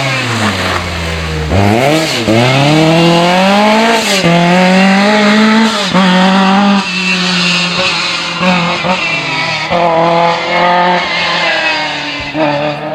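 Lancia 037 Rally's supercharged four-cylinder engine driven hard on a rally stage. The revs fall under braking, then there are quick throttle blips on the downshift about a second and a half in. The engine then pulls up through the gears, followed by choppy on-off throttle and a last rise near the end.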